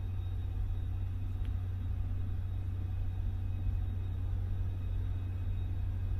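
Steady low rumble of background machinery, even throughout, with no tool strokes standing out.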